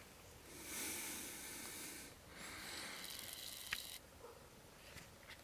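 Rustling in dry grass and leaf litter: two stretches of soft hissy rustle, each about a second and a half long, with a few faint clicks.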